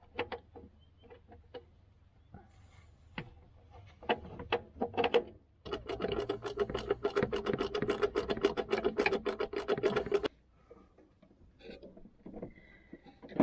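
Ratchet wrench winding in an airbox mounting bolt: a run of quick, even clicks, about five a second, for some four seconds from near the middle. Before it come scattered clicks and knocks of the bolt and tool being handled.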